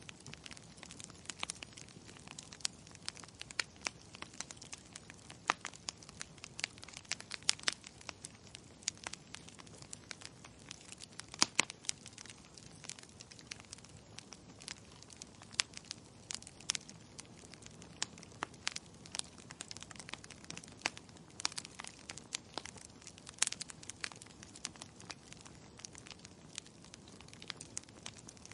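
Wood fire crackling in a fireplace: frequent irregular sharp pops and snaps over a low, steady hiss.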